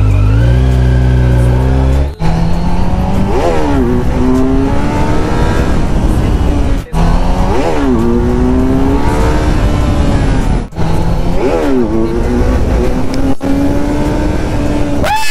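Kawasaki Z900's inline-four engine accelerating hard from a standstill, its pitch climbing through the gears with a short break in the sound at each upshift, four times.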